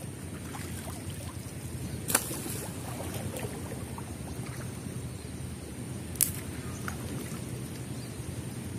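Water sloshing around a person wading waist-deep and hauling a fishing net in by hand, with two sharp clicks, about two seconds in and about six seconds in.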